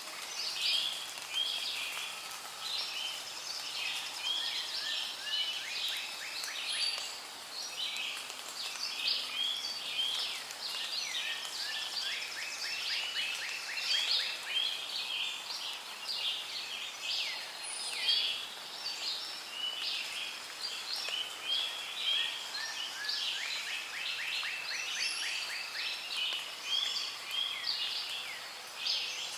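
Rainforest ambience: a dense chorus of many birds calling and chirping over one another, with a fast trill of rapidly repeated notes twice, about twelve and about twenty-five seconds in.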